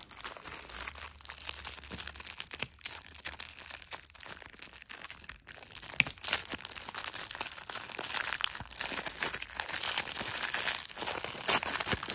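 Plastic packaging being torn open and handled: a dense run of crinkling and crackling with small clicks, growing somewhat louder about halfway through.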